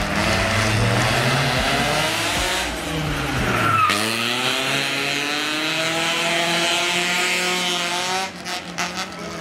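Car engine revving hard: its pitch falls, drops sharply about four seconds in, then climbs steadily for the next four seconds.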